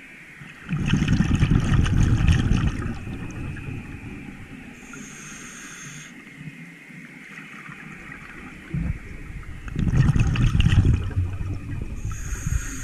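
Scuba diver breathing through a regulator underwater: two long rushes of exhaled bubbles, about a second in and again near ten seconds, with the hiss of an inhalation at about five seconds and again near the end.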